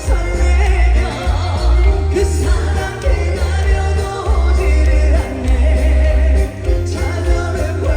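A trot song sung by a male singer through a concert sound system, over band music with a strong steady bass beat.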